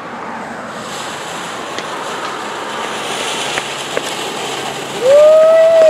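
Ground fountain firework hissing as it sprays sparks, starting about a second in, with a few faint crackles. About five seconds in a loud whistling tone sounds for about a second, bending up as it starts and dropping as it stops.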